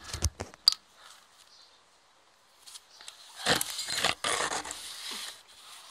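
A few handling clicks, then, about three and a half seconds in, a person gagging and retching in several harsh bursts lasting about two seconds.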